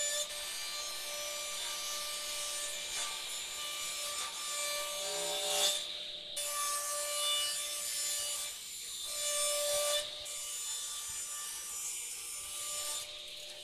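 Table saw running and cutting wooden boards: a steady motor whine under the hiss of the blade through the wood. The cutting noise drops away briefly three times, about six, ten and thirteen seconds in, between passes.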